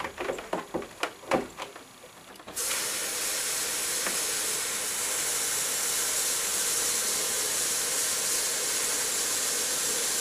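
A few knocks and clicks from handling the pump and hose in the bucket. About two and a half seconds in, a kitchen tap is turned on and water runs steadily into the bucket in the sink with an even hiss.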